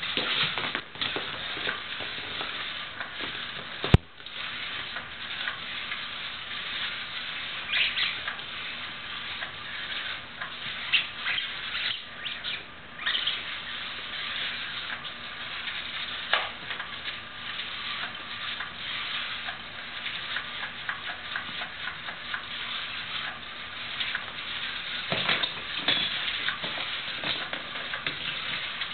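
Battery-powered cat toy running, its wand circling under a yellow fabric skirt with a steady, scratchy rustle over a faint low motor hum. There is one sharp click about four seconds in.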